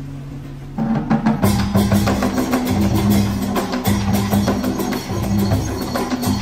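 Traditional Vietnamese music accompanying water puppetry: held low notes, then about a second in, drums and wood blocks come in loudly with a fast, dense beat.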